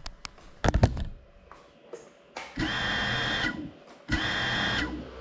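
GEPRC Cinelog 35 FPV drone crashing, with a cluster of sharp knocks a little under a second in. Then its brushless motors whine in two short bursts of about a second each, starting and cutting off abruptly.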